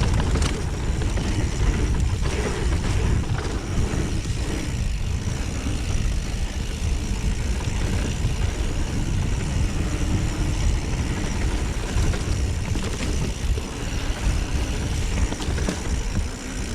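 Mountain bike riding a dirt trail: steady low wind rumble on the microphone, with tyre and bike rattle over the ground.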